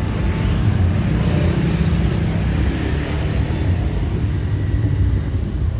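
A bus's diesel engine running with a steady low rumble.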